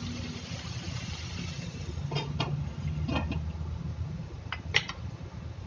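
A steady low hum in a kitchen while chicken cooks in a covered pan, with a few short clinks of metal, as of a pan and its lid.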